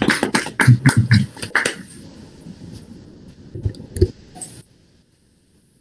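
Several people clapping, heard through a video call's audio, with a brief voice mixed in. The clapping dies away about two seconds in, two soft thumps follow, and the sound then cuts off.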